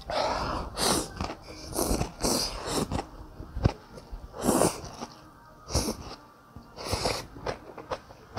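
A person slurping rice noodles from a bowl of beef noodle soup: several quick, hissing slurps in irregular bursts, with quieter chewing between them.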